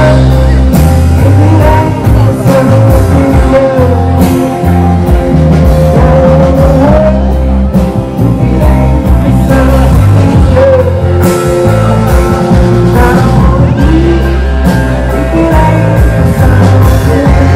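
Rock band playing live, with electric guitar, drums and a singer. The music is loud and continuous, with held, gliding melody notes over a steady beat.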